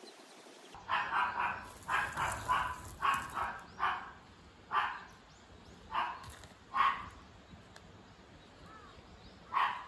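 A dog barking: quick runs of two or three barks for about three seconds, then single barks a second or so apart, and one more near the end.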